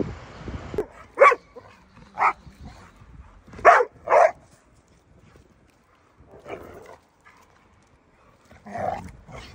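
A dog barking: four short, loud barks in the first half, the last two close together.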